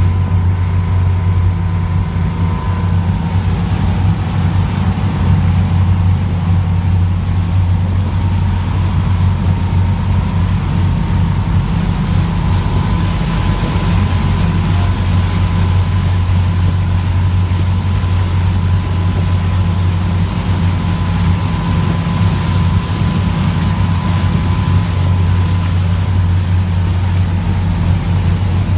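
Motorboat engine running steadily while under way, a constant low drone with a faint steady whine, along with the rush of water past the hull.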